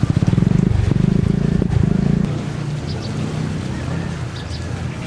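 A small engine runs close by with a rapid, even pulsing, loudest in the first two seconds and then dropping to a lower level.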